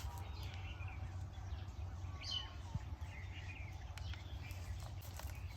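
Small birds chirping faintly in short, scattered calls over a steady low background rumble.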